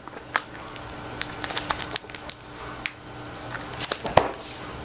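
Handling noise of a book and its packaging: irregular light clicks and crinkles, with a sharper tap about four seconds in.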